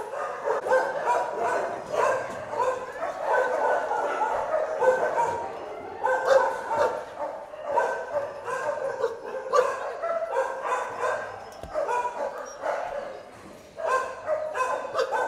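Many dogs barking and yelping at once from the shelter kennels, an unbroken overlapping chorus of barks.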